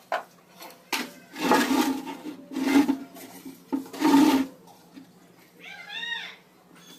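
Wooden pieces being slid and shifted on a plywood box top, with three louder scraping sounds in the first two thirds. Near the end comes one short high-pitched call that rises and falls.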